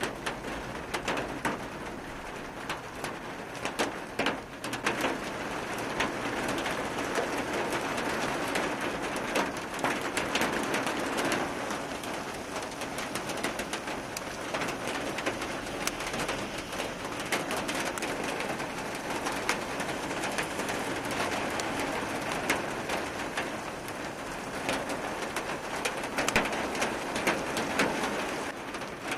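Heavy rain mixed with hail falling on a paved road: a steady downpour hiss, peppered with many sharp ticks of hailstones and drops striking.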